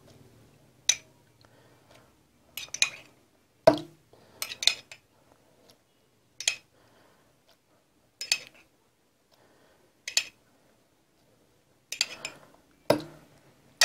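A metal spoon clinking against a drinking glass and a plastic food-processor bowl as spoonfuls of liquid are ladled across. The clinks are sharp and separate, coming every second or two, sometimes in quick pairs.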